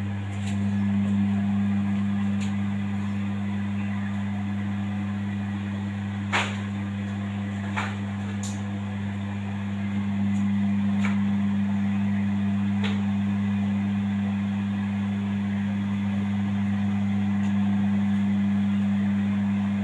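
Steady low electric hum from running machinery, with a few sharp clicks or light knocks here and there. The hum gets a little louder about halfway through.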